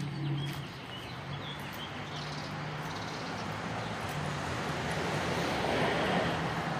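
Street traffic: a steady low engine hum under road noise that swells about six seconds in, then eases.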